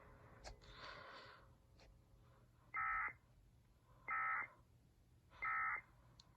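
Emergency Alert System digital data tones: three short, harsh bursts about half a second each and roughly one and a half seconds apart. This is the End of Message code that closes the tornado warning broadcast.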